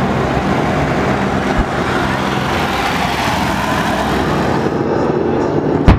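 Aircraft engines running loud and steady as the planes fly over the airfield, with one sudden loud bang from a pyrotechnic charge near the end.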